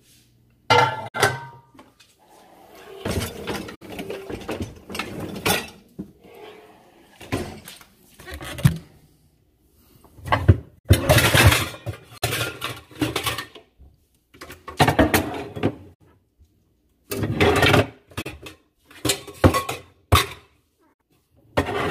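Pots, pans and dishes clattering and clinking as they are handled, in repeated bursts with short pauses between.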